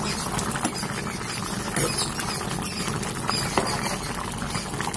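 Thick chicken curry boiling hard in an open pan: a steady crackle of bubbling and popping, with a ladle stirring through it. The curry is at a full boil but not yet fully cooked.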